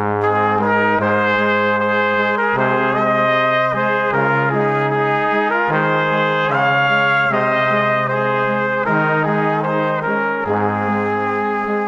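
Brass quartet music, trumpets and trombones playing slow, held chords that change every second or so.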